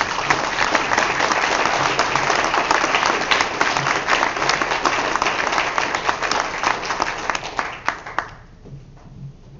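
Audience applauding: a dense clatter of many hands clapping that dies away about eight seconds in.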